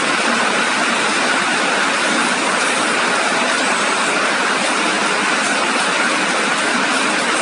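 Heavy rain falling steadily, an even hiss of noise without let-up.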